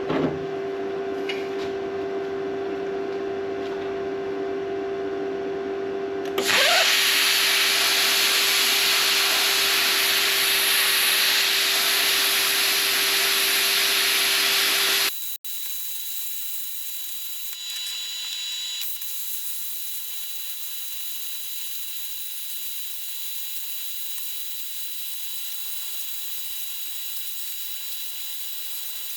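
A steady hum with a low tone, then a plasma cutter's arc cutting steel with a loud, even hiss for about nine seconds, starting about six seconds in. The hiss stops abruptly, leaving a quieter steady background with a faint high whine.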